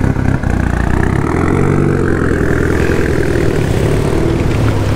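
Car engine and exhaust running close by, its note stepping up in pitch about a second in and holding there.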